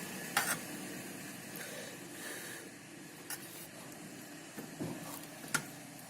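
A few sharp clicks and a duller knock over a steady background hiss.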